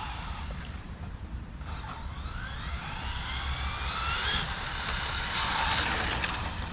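Brushless electric motor and drivetrain of an 8S Arrma Infraction V2 1/7-scale RC car at full throttle on a speed run: a whine that climbs steadily in pitch for a few seconds as the car speeds up, over a steady low rumble.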